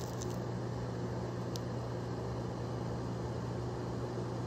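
Steady low hum of room background noise, with a single faint click about one and a half seconds in.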